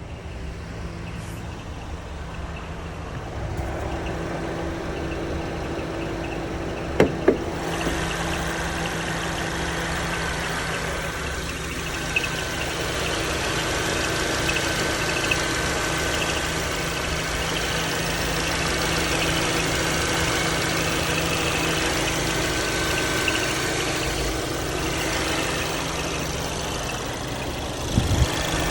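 2018 Volkswagen GTI's 2.0-litre turbocharged four-cylinder running steadily, with a faint recurring high chirp. Two sharp clicks come about seven seconds in, and the sound gets louder around four and eight seconds in.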